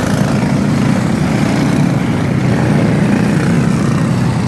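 Caged microstock racing karts' small engines running at speed as several karts pass on the track, a steady engine drone.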